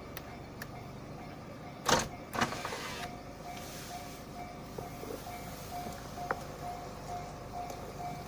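A Japanese level crossing's warning bell starts about three seconds in, ringing a steady electronic "kan-kan" of one pitch about twice a second: the signal that a train is approaching. Just before it come two loud thumps about half a second apart.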